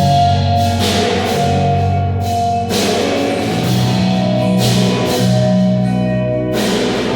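Instrumental music played live: sustained low bass notes and held chords, with a sharp ringing hit that fades out roughly every two seconds.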